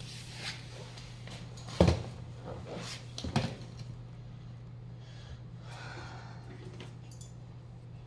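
A MacBook being handled and opened on a metal laptop stand on a desk: two sharp knocks about a second and a half apart, then a soft rustle, over a steady low hum.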